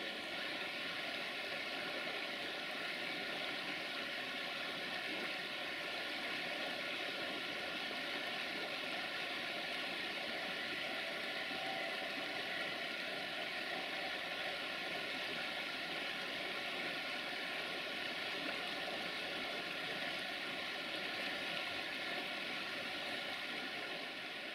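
Multirotor drone's propellers running steadily in flight: an even whirring hiss with a faint, constant high hum.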